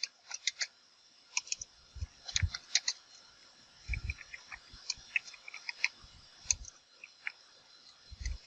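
Typing on a computer keyboard: irregular keystrokes in short runs, a few of them landing with a dull thud.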